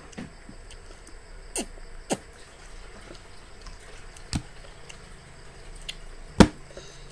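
Wet cucumber slices and drips plopping back into the watery dressing in a bowl as they are picked out by hand: about four separate short plops and taps, the loudest one near the end.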